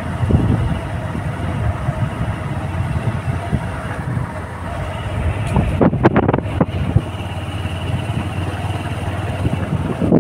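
Wind buffeting the microphone over a steady rushing noise, with a few short knocks about six seconds in.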